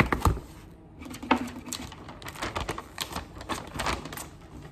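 A cardboard gift box knocked down onto a table twice at the start, then wrapping paper crackling and rustling as it is lifted and folded over the box, with another knock about a second and a half in.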